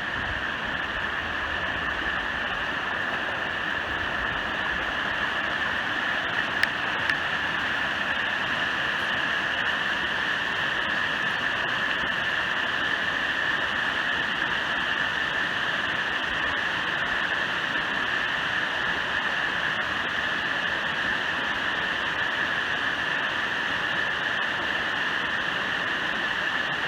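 Steady rushing of a large waterfall, water pouring down a rock face.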